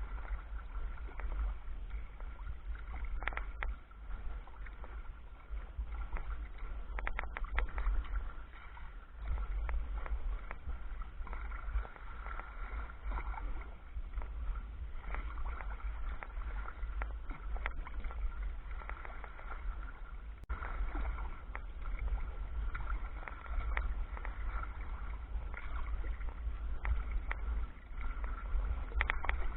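Sea kayak under paddle and sail: water splashing and lapping along the hull, over a loud, uneven rumble of wind buffeting the microphone.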